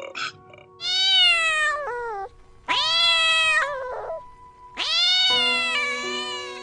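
Domestic cat meowing three times, each a long drawn-out meow about a second and a half long that drops in pitch at the end.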